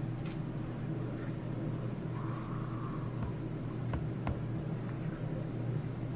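A steady low hum, with a few light clicks as a plastic spoon stirs slime in a plastic tub.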